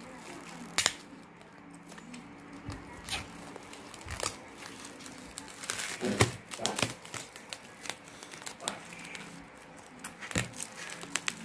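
Plastic cling film crinkling and tearing as it is peeled off a foam food tray, in irregular crackles and snaps with louder bursts about halfway through and near the end.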